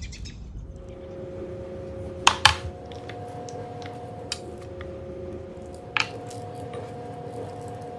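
Hands rubbing oil into thick raw ribeye steaks on a metal sheet tray, a soft wet squishing. There are two sharp clinks close together a little over two seconds in, and another around six seconds.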